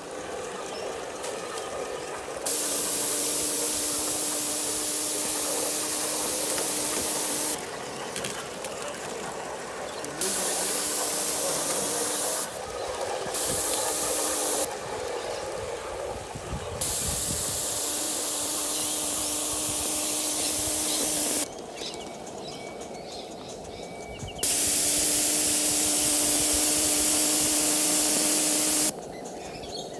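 Gauge 1 live-steam model locomotive blowing off steam: five loud hissing bursts, each one to five seconds long, start and stop abruptly, with a steady hum under each.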